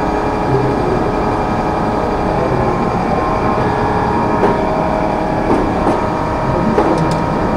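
A steady loud mechanical drone runs throughout. A few light metallic clicks come in the second half as a ring spanner works the pivot nut of old rusted pruning shears.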